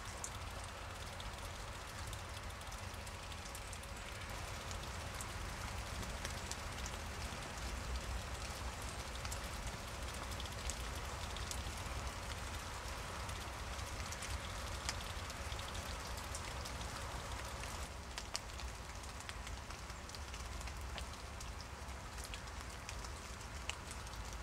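Steady rain with many separate drops ticking and dripping, over a low rumble.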